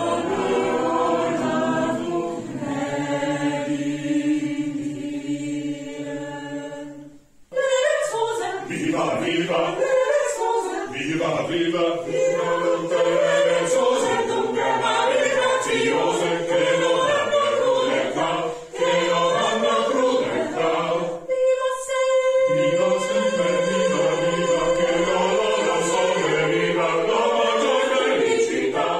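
Mixed choir of men and women singing a cappella. The singing breaks off briefly about a quarter of the way in, then picks up again.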